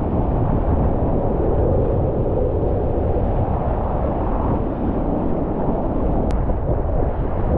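Whitewater river rapids rushing close around a kayak: a steady, loud wash of water noise.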